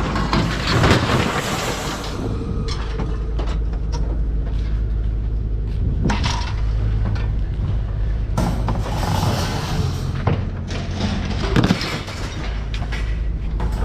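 Scrap metal being thrown out of a truck onto a pile, with clanks and thuds several times over a steady low engine rumble.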